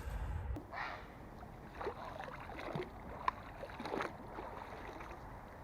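Faint, irregular water splashing and sloshing, with one sharp click about three seconds in.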